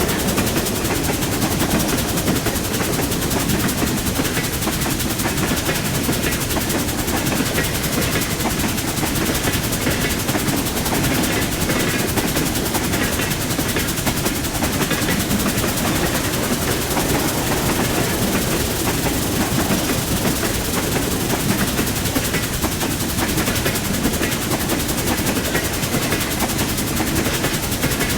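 Train running along the track: a steady, dense rattle and clatter of the wheels and cars that never lets up.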